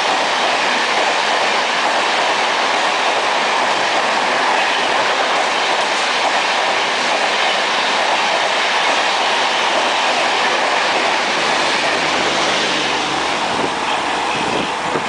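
Shatabdi Express train of LHB coaches passing close at speed: a loud, steady rushing noise of wheels on rail with some clickety-clack, easing a little near the end.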